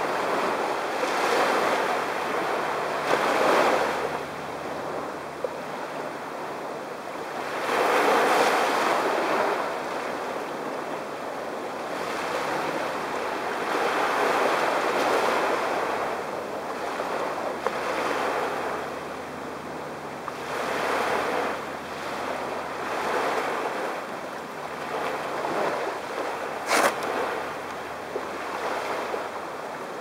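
Small waves washing up onto a sandy beach, the surf swelling and easing every few seconds. A single sharp click sounds near the end.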